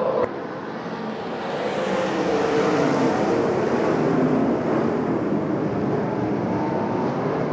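A pack of 410 sprint cars accelerating hard together from a green-flag race start on a dirt oval, their 410-cubic-inch V8 engines running at high revs in overlapping tones. The sound swells about a second and a half in and then holds.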